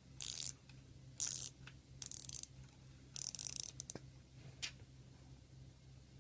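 Rotating dive bezel of an Invicta Pro Diver 8928OB watch being turned, ratcheting in four short bursts of clicks, then a couple of single clicks.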